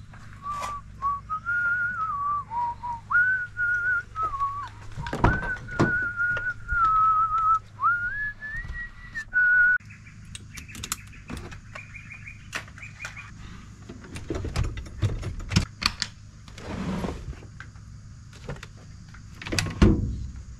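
A person whistling a tune in held, stepping notes for about ten seconds. Then the knocks and clatter of cordless power tools being handled and lifted out of a storage rack.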